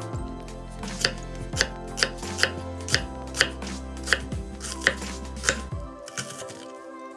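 Knife chopping food on a cutting board, evenly spaced strokes about two a second, over a steady low tone that stops about six seconds in.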